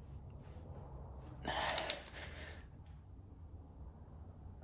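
A man's strained breathing as he heaves on a torque wrench to bring a cylinder head nut up to 90 foot-pounds, with a heavy breath and a few quick sharp clicks about a second and a half in.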